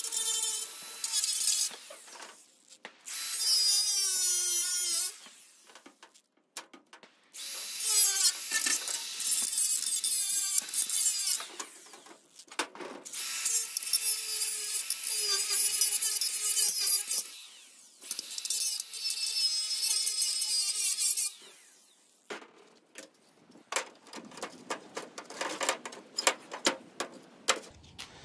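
Cordless Milwaukee grinder cutting out grille slats in five bursts of a few seconds each, the motor's pitch wavering as the disc bites. Scattered light taps and clicks near the end.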